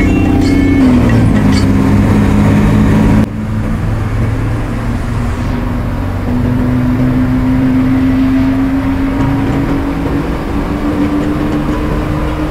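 A bus's diesel engine running at highway speed with road noise, heard from inside the cabin. The engine note dips about a second in; after an abrupt cut a few seconds in, the engine hum slowly rises in pitch as the bus accelerates.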